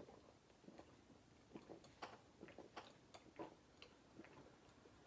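Faint gulping and swallowing clicks as two people down glasses of beer mixed with milk, a few soft irregular clicks a second.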